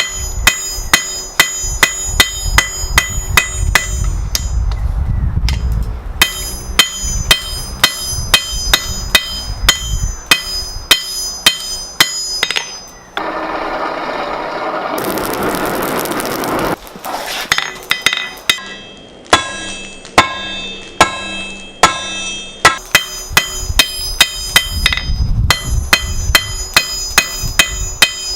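Blacksmith's hammer forging a steel bar on an anvil: quick, even ringing blows, about two or three a second, each leaving a metallic ring. The hammering breaks off for a few seconds in the middle, where a steady rushing noise takes over, then picks up again.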